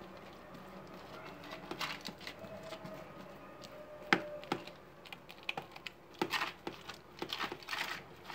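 Fingers pressing and stretching very wet, oiled focaccia dough across a parchment-lined baking tray: irregular soft squelches and taps, with one sharper tap about four seconds in.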